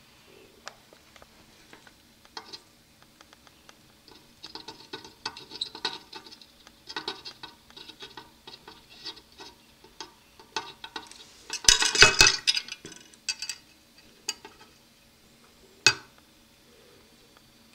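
Small metallic clicks and clinks as a soldering iron and a copper wire are worked against a metal antenna connector while the wire element is soldered on. The clicks come in an irregular run, with a louder dense cluster about twelve seconds in and one sharp click near the end.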